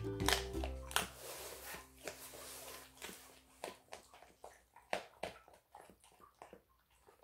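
A large dog crunching and chewing a raw duck backbone, with sharp irregular cracks of bone breaking between its teeth.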